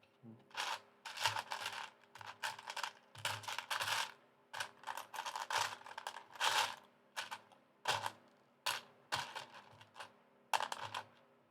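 Loose plastic Lego bricks clattering in quick, uneven clusters of clicks as hands rummage through a pile of pieces.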